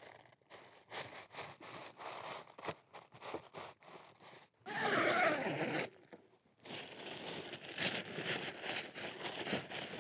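The Dyneema composite fabric of an ultralight tent being handled: irregular rustles and many short crackles as the panels are pulled and folded, with a louder, denser rush lasting about a second about five seconds in.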